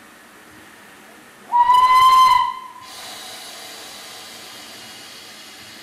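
Steam locomotive whistle giving one short blast of about a second, its pitch rising slightly at the start and then holding steady. A steady hiss of escaping steam starts just after it.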